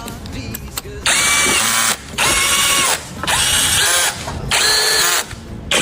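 Power tool running in five bursts of about a second each, with short pauses between, each with a whining pitch over a loud buzz.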